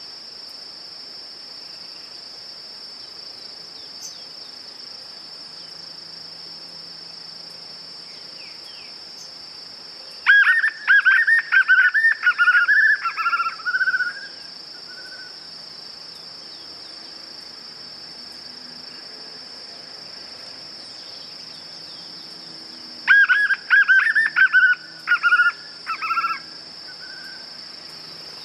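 White-eared puffbird (joão-bobo) singing two bouts of rapid, falling whistled notes, the first about ten seconds in and the second about twenty-three seconds in. A steady high insect buzz runs underneath.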